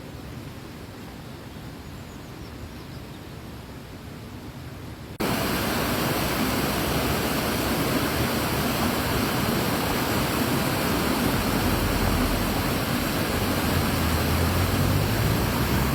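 Water pouring over a weir, a loud steady rush that cuts in abruptly about five seconds in, after a quieter stretch of low outdoor rumble.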